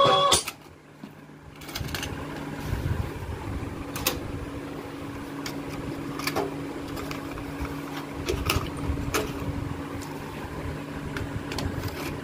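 Music from a Boss CPA-560 cassette player-amplifier cuts off about half a second in as a key on the deck is pressed. A steady hum follows, broken by scattered plastic clicks and clunks as a cassette tape is handled and pushed into the deck's slot.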